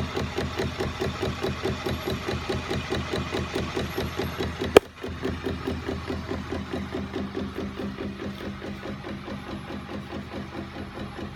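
Homemade aluminium crank-and-linkage machine with a flywheel, driven by a small battery-powered electric motor, running with an even, rhythmic clatter of its moving arms and a steady hum underneath. A single sharp click about five seconds in.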